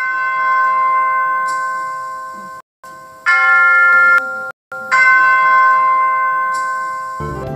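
A bell struck three times, each stroke ringing on and slowly fading, the first two cut off abruptly; background music comes back in near the end.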